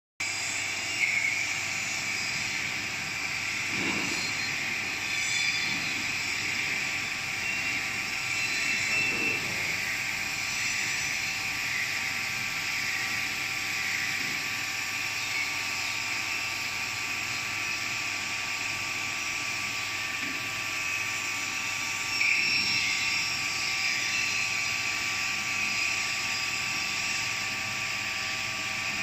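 Golden Boat T12 touchless car wash machine running: high-pressure water jets hiss steadily onto a car body over the machine's steady whine.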